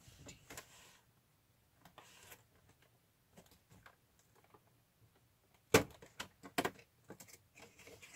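Cardboard doors of an advent calendar box being pried open and handled: scattered rustles and light clicks, with a couple of sharp snaps about two-thirds of the way through.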